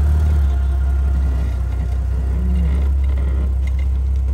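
Jeep Grand Cherokee WJ's engine running steadily at low revs while the lifted SUV crawls slowly over a large boulder, a loud low drone.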